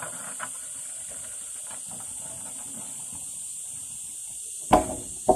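A steady high hiss, with two sharp knocks near the end, each followed by a short ring.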